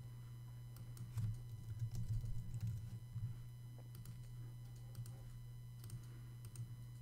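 Faint typing on a computer keyboard, with scattered clicks that come thickest in the first half, over a steady low hum.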